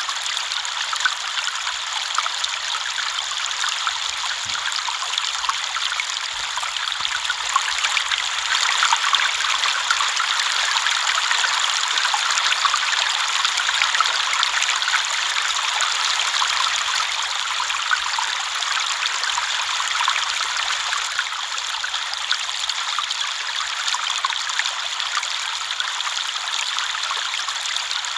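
River water flowing and splashing steadily over stones, a continuous rushing with fine trickling detail and little low rumble.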